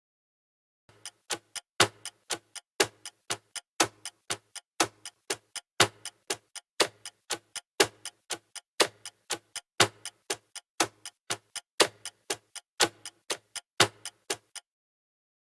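Clock-tick sound effect: a quick, even run of sharp ticks, about four a second. It starts about a second in and stops shortly before the end.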